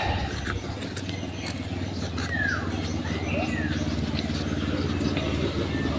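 A motor engine running steadily, slowly growing louder, with a couple of short falling bird chirps about two to three seconds in.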